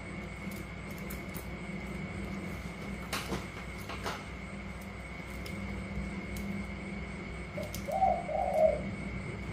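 Caged spotted dove cooing, a short run of low rounded coo notes near the end, over a steady background hum. Two light knocks come a few seconds earlier.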